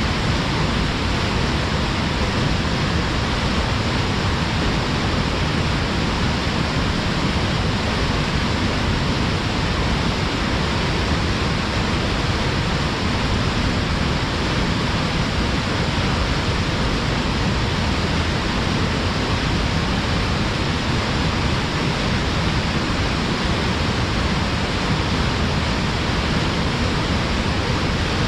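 Waterfall pouring forcefully between rocks: a steady, unbroken rush of water.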